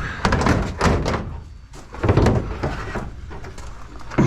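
Scrap metal being shifted and set down: several heavy thuds and knocks, some of them ringing briefly.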